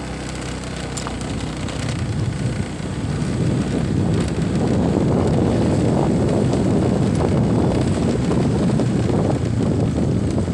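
Motorcycle engine running while riding, with wind buffeting the microphone; the rumble grows louder over the first few seconds, then holds steady.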